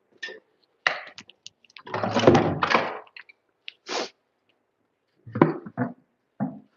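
A hand tool cutting around a marked hole in an electrical box to open it up for a connector: irregular knocks and scraping strokes, with one longer, louder rasping cut about two seconds in and a few sharp knocks near the end.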